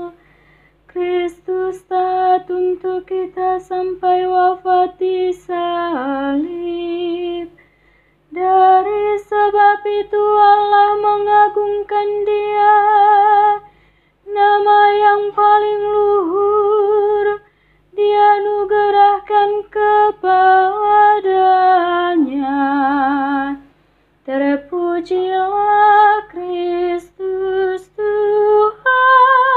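Solo female voice singing a slow liturgical melody: long held notes with vibrato, in phrases separated by short pauses, with no instrument apparent. The melody is a Catholic Gospel acclamation sung by a soloist.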